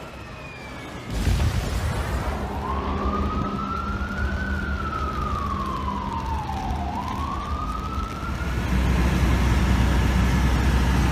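Emergency vehicle siren wailing: a slow rise and fall in pitch over about four seconds, then rising again, over a steady low rumble. The rumble starts about a second in and grows louder near the end.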